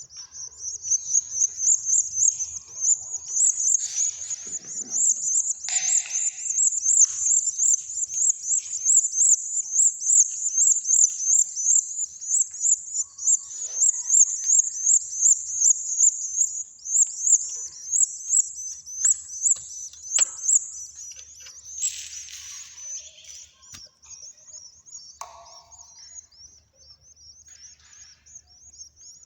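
Young cage birds chirping in a fast, unbroken run of high chirps, several a second. The chirping is louder for the first twenty seconds or so and then grows fainter, with a few brief rustles mixed in.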